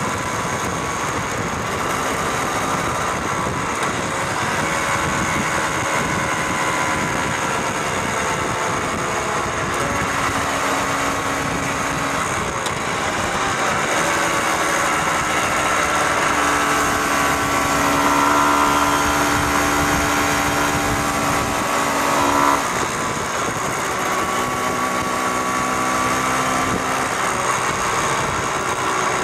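Motorcycle engine running under way, its pitch rising and falling with the throttle and changing suddenly a little over twenty seconds in, over a steady rush of wind and road noise.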